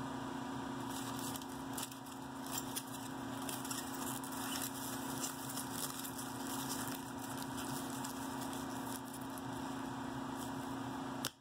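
Aluminium foil crinkling in irregular crackles as gloved hands wrap it back over a jar, over a steady hum.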